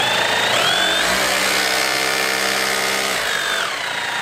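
Cordless SDS-Plus rotary hammer's brushless motor and gearbox running free with no load. The trigger is squeezed and the whine rises in a couple of steps, holds steady, then winds down near the end. The speed control is not truly stepless but a bit stepped.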